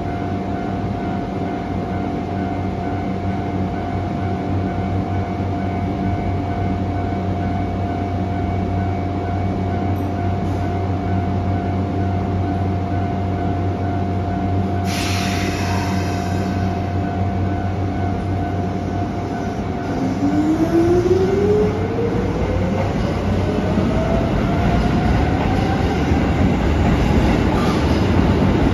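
Keisei 3400-series electric train standing at the platform with a steady electrical hum from its onboard equipment, broken about halfway by a sudden short burst of noise. It then pulls away, its traction motors whining steadily up in pitch as it accelerates, with the rumble of the wheels growing.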